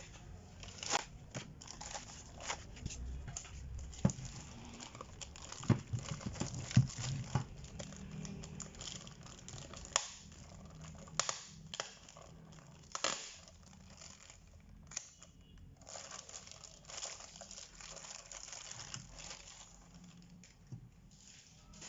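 Crinkling and rustling as packaging is handled, with scattered sharp clicks and light knocks throughout.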